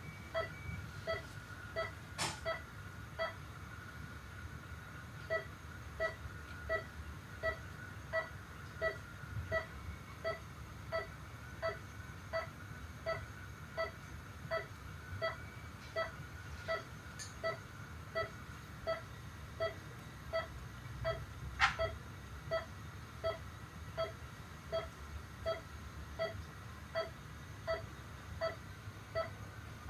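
Heart monitor beeping with the heartbeat: short, evenly spaced tones a little faster than one a second, with a brief pause a few seconds in. A few sharp clicks and a faint steady hum sit underneath.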